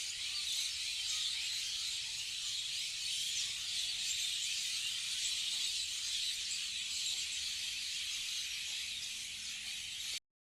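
A dense chorus of many small birds chirping at once, merging into a steady high-pitched chatter, which cuts off suddenly about ten seconds in.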